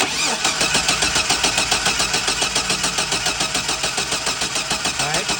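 2004 Chevy Silverado's 4.3-litre V6 cranking on the starter with an even, quick beat, without catching, and then stopping near the end. This is a crank-no-start, with a spark that looks super weak at the spark tester.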